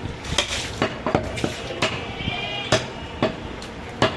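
Butcher's cleaver chopping goat shoulder meat on a wooden chopping block: a quick, irregular run of sharp knocks, two or three a second. A goat bleats briefly about two seconds in.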